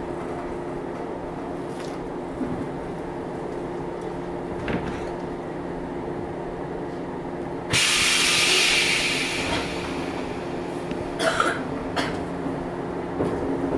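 Interior sound of a JR 115 series electric train standing still, its equipment giving a steady hum. About eight seconds in comes a sudden loud hiss of released compressed air lasting two to three seconds, followed by a few short clicks.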